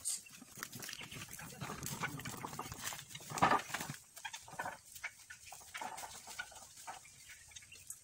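Irregular animal calls, the loudest about halfway through.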